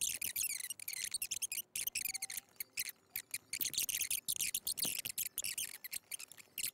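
Rapid, irregular clicking of computer keyboard keys being typed.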